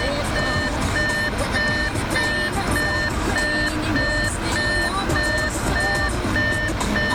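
Electronic reversing warning beeper sounding steadily, about two high-pitched beeps a second.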